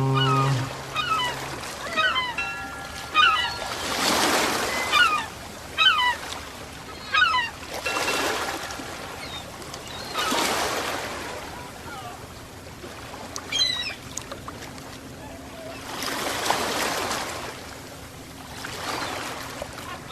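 Ocean waves washing in and out in slow swells about every four seconds, with birds giving short calls over them, mostly in the first half. A deep horn sounds at the very start and cuts off within the first second.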